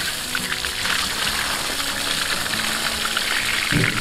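Water gushing and spluttering from the open end of a PVC pipe drawn up from a deep well, frothy with air, splashing over hands and onto the ground; the hiss of the flow is the air pressure from the well. Background music plays under it.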